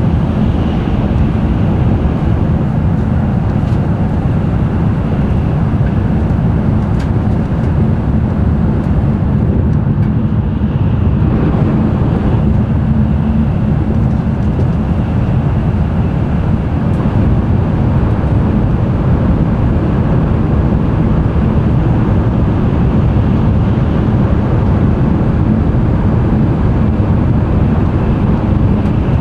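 Cabin running noise of an N700-series Tokaido Shinkansen at speed: a steady, loud low rumble and rush from the wheels, track and air.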